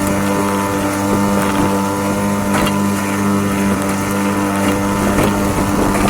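A small outboard motor pushing a canoe, running at a steady, unchanging speed, with wind and water noise around it and a few brief knocks or splashes.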